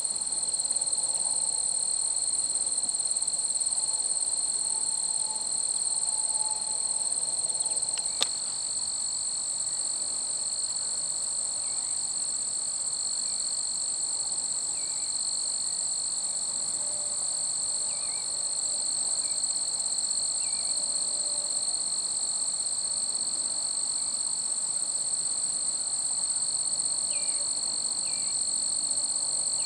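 Insects trilling in a steady, unbroken high-pitched drone, with one sharp click about eight seconds in.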